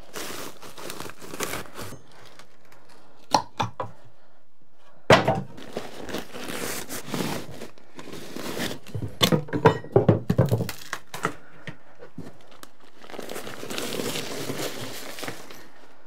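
Old attic insulation being pulled and pushed aside, crinkling and tearing, with a few hard knocks on the wooden floorboards. The loudest knock comes about five seconds in, and a cluster of them follows around nine to eleven seconds.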